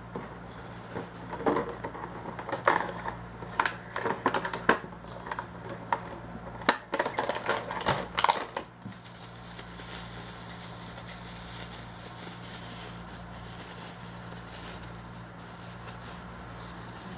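Packaging being handled and opened: a quick run of sharp clicks and crinkles for about eight seconds, which stops abruptly, leaving only a steady low hum.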